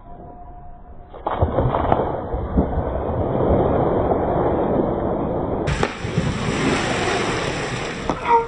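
A person plunging into a swimming pool with a big splash about a second in, followed by water splashing and churning for several seconds.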